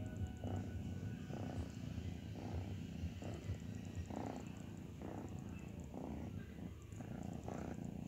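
A domestic cat purring steadily, the purr swelling and easing about once a second with its breathing.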